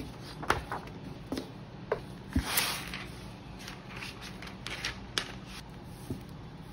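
A printed paper sheet being handled and smoothed by hand on a tabletop: a scattered series of sharp crinkles and taps, with a short swish about two and a half seconds in.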